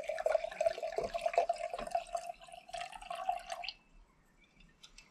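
Red wine poured from a bottle into a glass, gurgling and glugging over a steady tone, the pour stopping a little under four seconds in.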